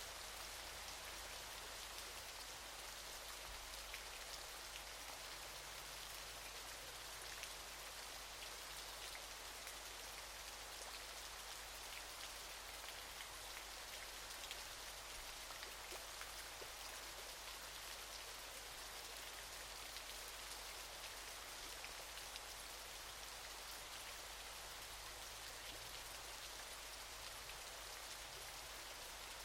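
Waterfall water falling and splashing in a steady, even hiss full of fine pattering drops, with no deep rumble.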